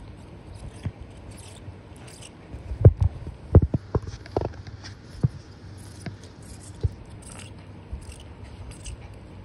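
Small dog gnawing on the sole of a sneaker: biting, scraping and chewing clicks, with a cluster of louder knocks about three to four and a half seconds in.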